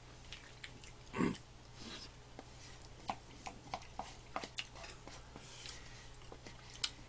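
Quiet eating sounds: spoons clicking and scraping against plastic cup-rice containers and bowls, many small ticks that come thicker in the second half, with chewing. One short, louder sound about a second in.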